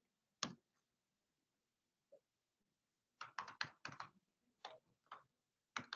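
Faint keystrokes on a computer keyboard: a single key press about half a second in, then an irregular run of key taps from about three seconds on as a command and hostname are typed.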